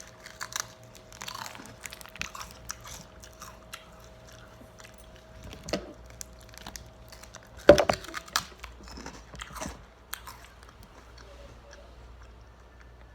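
Close-up biting and chewing of a crunchy snack, with many short crunches and crackles. A sharp knock a little past halfway is the loudest sound.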